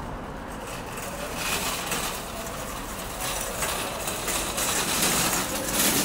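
City street ambience: a steady low traffic rumble, with noise swelling up several times as vehicles pass, loudest near the end.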